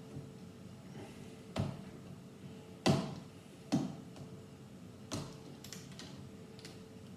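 Plastic Lego pieces being pulled off and pressed back on: about four sharp clicks and snaps with fainter ticks between, the loudest about three seconds in.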